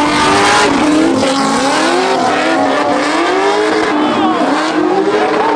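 Two drift cars, one a Nissan 350Z, sliding sideways in tandem, their engine notes repeatedly rising and falling as the drivers work the throttle, with tires screeching.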